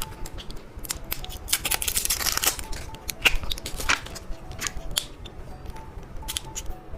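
Plastic candy packaging being handled and opened: crinkling and rustling with many sharp clicks, and a longer stretch of crinkling about two seconds in.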